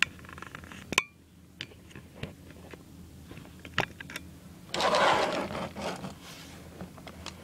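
Handling noise: a few sharp plastic clicks and knocks, the loudest about a second in, then about a second of rustling a little past halfway, as hands move a plastic B-daman marble-shooter toy into place.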